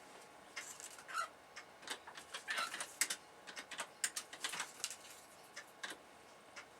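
Computer keyboard being typed on: irregular bursts of light key clicks.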